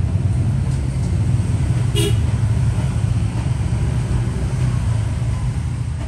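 Steady low rumble of passing street traffic, with one short horn beep about two seconds in.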